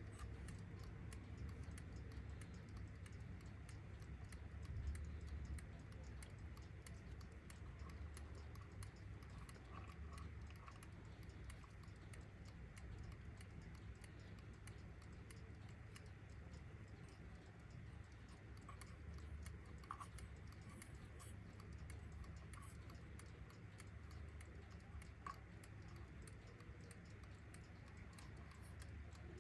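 Faint, steady, quick ticking of a Kienzle twin-bell mechanical alarm clock's freshly oiled movement, over a low background hum.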